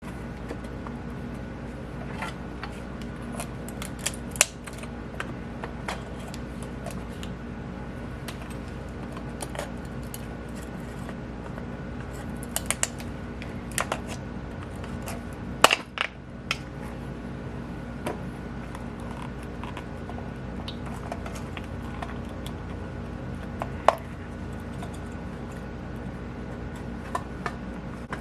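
Intermittent clicks, scrapes and small snaps of a tool cutting around a plastic cap, over a steady low hum, with a few sharper cracks at about four seconds, sixteen seconds and twenty-four seconds in.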